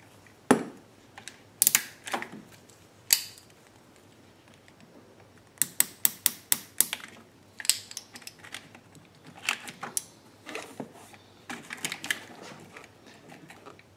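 Sharp clicks of a nylon ratchet hose clamp being squeezed shut with pliers on a rubber fuel hose: a quick run of about six clicks just past the middle, with single clicks and pliers handling before and after.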